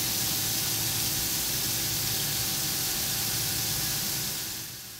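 Flood coolant spraying inside a CNC turning centre as it turns a large spinning part: a steady hiss with a faint steady machine tone beneath, dying down about four and a half seconds in.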